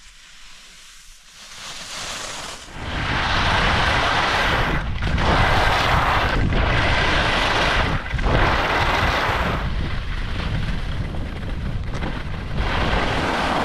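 Skis hissing and scraping over firm groomed snow while skiing downhill, with wind rushing over the microphone underneath. Quiet at first, it swells about two and a half seconds in and stays loud, dipping briefly three times.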